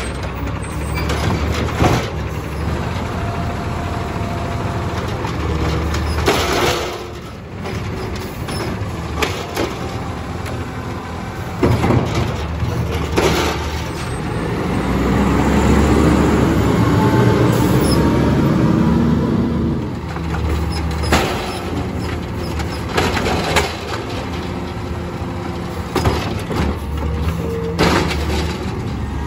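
Natural-gas automated side-loader garbage truck idling at the curb while its hydraulic arm grabs, lifts and dumps a recycling cart. The engine speeds up for several seconds in the middle to drive the hydraulics, with clunks and knocks of the arm and cart throughout.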